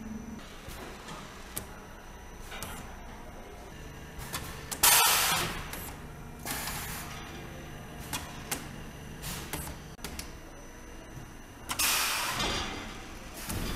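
Polyurethane foam pouring head hissing in three short bursts as it dispenses into a sofa mould, the loudest about five seconds in. Scattered clicks and knocks of the moulding line and a low machine hum lie underneath.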